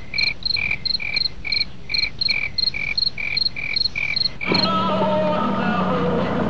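Crickets chirping in a fast, even rhythm of short chirps at two alternating pitches, about three to four a second. The chirping cuts off abruptly about four and a half seconds in and gives way to a steady low hum with some drifting tones over it.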